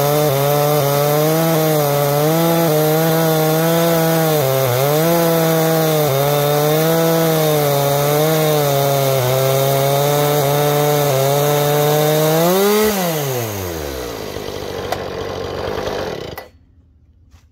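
Husqvarna 460 Rancher two-stroke chainsaw ripping a cedar log lengthwise in an Alaskan chainsaw mill, running hard under load, its pitch wavering as it works through the cut. About thirteen seconds in it revs up briefly, then drops away to a low idle and is shut off near the end.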